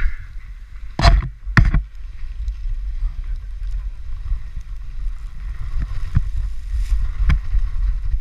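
Toboggan sliding fast down a packed-snow run: a steady low rumble and scrape of the sled on the snow, with wind buffeting the microphone. Two sharp knocks about a second and a second and a half in as the sled jolts over bumps, and a few lighter knocks later.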